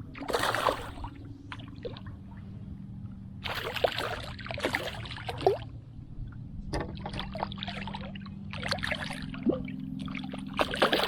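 Water splashing and trickling in several short irregular bursts over a steady low hum.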